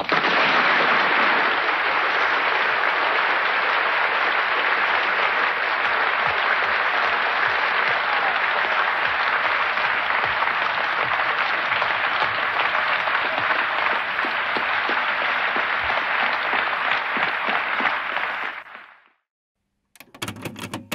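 A large audience applauding in a long, steady ovation that fades out near the end.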